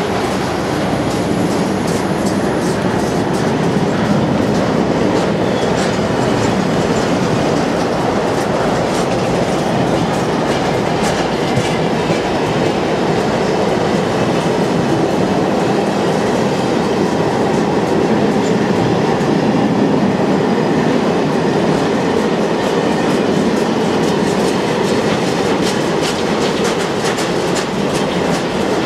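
Covered car-carrier wagons of a freight train rolling past: a steady rumble of steel wheels on rail, with a running clickety-clack of wheelsets crossing rail joints, the clicks growing busier in the second half.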